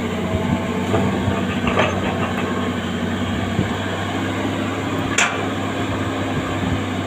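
Hydraulic excavator's diesel engine running steadily at a constant pitch, with an occasional sharp metallic clank, twice.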